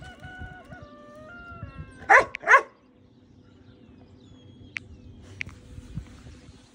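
Dogs at play: a high drawn-out whine held on flat notes that step in pitch, then two loud barks about half a second apart.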